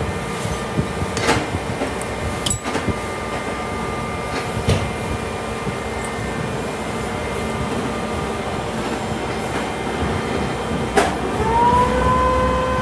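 Metal-workshop machinery running with a steady hum and a few sharp metallic knocks. Near the end a knock is followed by a machine spinning up to a steady whine.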